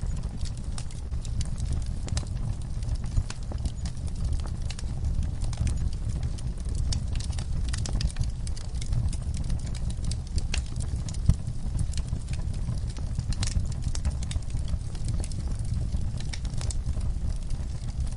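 Wood fire crackling in a fireplace: irregular sharp pops and snaps, a few louder than the rest, over a steady low rumble of the burning fire.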